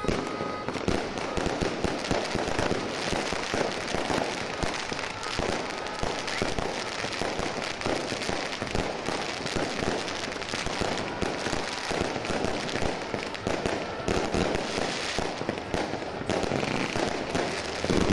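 Aerial fireworks going off in a rapid, unbroken string of bangs and crackles.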